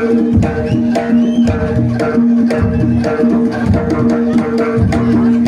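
Live jaranan (kuda lumping) music: quick hand-drum strokes with clacking percussion over repeated, held pitched notes.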